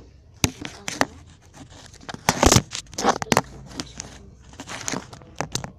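Handling noise: scraping and rustling with several sharp knocks, loudest in a scraping burst about halfway through.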